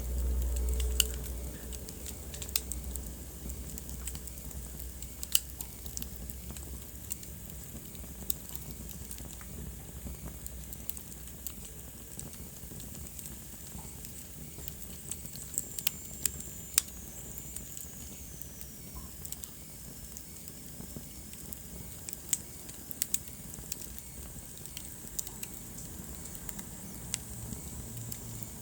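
Wood fire crackling, with scattered sharp pops over a steady low rumble that is louder for the first second or so. About halfway through, a thin high whistle slides down in pitch.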